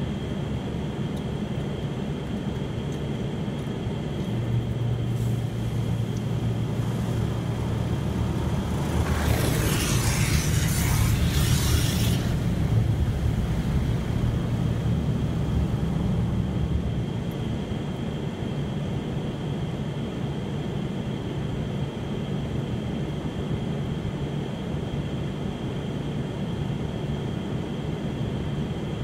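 Automatic car wash machinery heard from inside the car: a steady low droning rumble with a thin high whine. About a third of the way in, water sprays hard onto the car for roughly three seconds, a loud rushing hiss.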